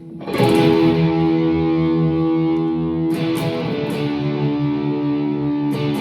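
Distorted electric guitar playing E and D power chords, each chord struck and left ringing: three strikes about three seconds apart.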